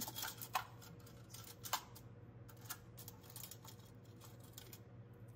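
Steady low hum of an air purifier running, with a few scattered light clicks and taps, the sharpest about two seconds in.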